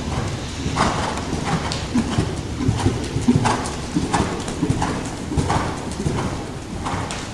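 Hoofbeats of a Hanoverian gelding moving on the footing of an indoor riding arena, in a steady rhythm of about three strong beats every two seconds.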